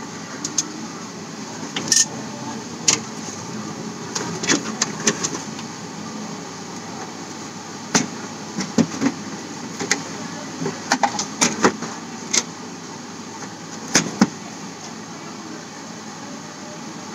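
Scattered sharp clicks and knocks of plastic on metal as the white plastic back cover of an HP Pavilion all-in-one PC is handled and fitted onto its chassis, over steady room noise.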